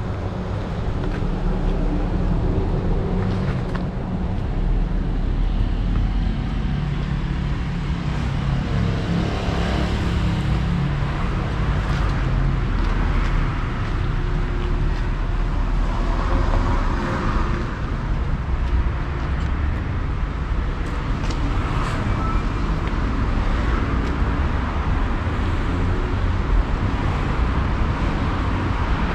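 Street traffic: car engines running and passing, over a steady low rumble.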